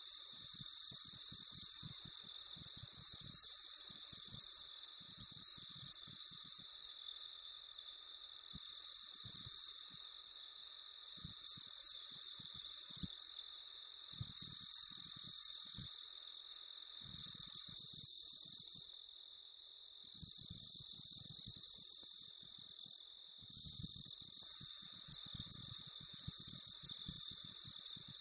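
Crickets chirping: a continuous high trill under a regular pulse of chirps, about three a second.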